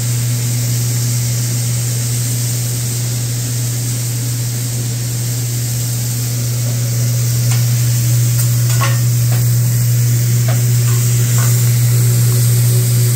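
Vegetables sizzling and hissing on a steel teppanyaki griddle as the hibachi chef stirs them with metal spatulas, with a few light spatula clicks in the second half. The sizzle grows a little louder about seven seconds in, over a steady low hum.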